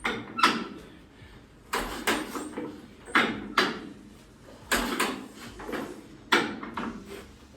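1938 Massey Harris Pacemaker tractor engine being crank-started, firing in short irregular bursts, mostly in pairs about every second and a half, without catching and running. Its carburettor and choke are still being set.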